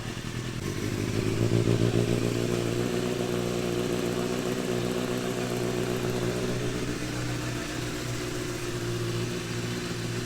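Benelli motorcycle engine idling just after a cold start, its first run in three or four days. The engine note rises about a second in, then settles to a steady idle.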